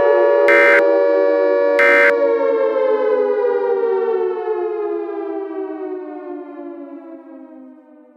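Civil defense siren sounding a steady multi-tone wail, then winding down: from about two seconds in its pitch falls and it fades out near the end. Two short bright pulses come about a second and a half apart in the first two seconds.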